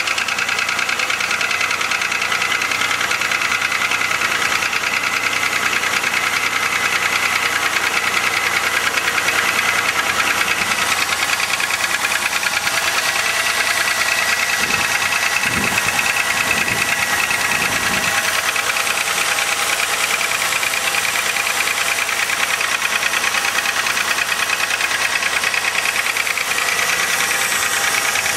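Chevrolet 3100 (3.1 L) pushrod V6 running steadily with a loud, rapid, even knocking clatter, which the owner takes for piston slap; thicker oil and an engine flush have not cured it.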